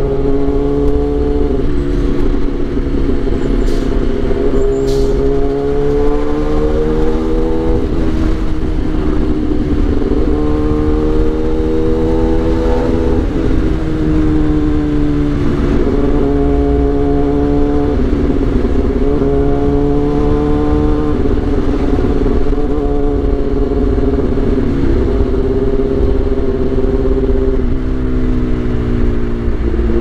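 Kawasaki Ninja ZX-10R's inline-four engine, heard from the rider's seat while riding. The revs climb slowly and drop sharply several times over a low wind rumble.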